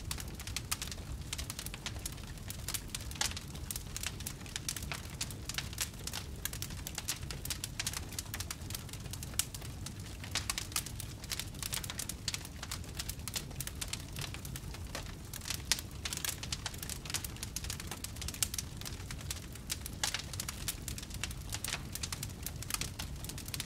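Wood fire crackling steadily: dense, irregular snaps and pops, a few sharper than the rest, over a low steady rumble of the burning logs.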